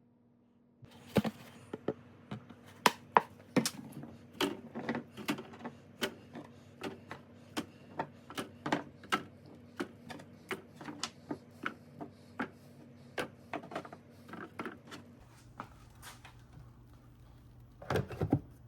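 Irregular sharp clicks and light knocks, two or three a second, over a faint steady hum, with a louder cluster of knocks near the end.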